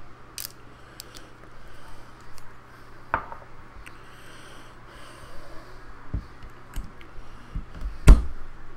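Small clicks and knocks of vape gear and an e-liquid bottle being handled while the atomizer is dripped and closed up, with a sharper knock a little after the middle and a louder knock with a dull thump near the end.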